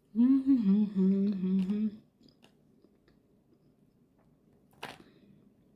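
A woman's closed-mouth hum in two short parts, about two seconds in all, followed by a single sharp click near the end.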